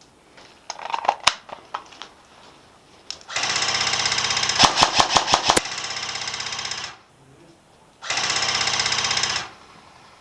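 Airsoft electric gun firing two long full-auto bursts: a loud, steady, rapid buzz about three and a half seconds long with a run of sharper cracks in the middle of it, then a second burst of about a second and a half. Scattered clicks come before the bursts.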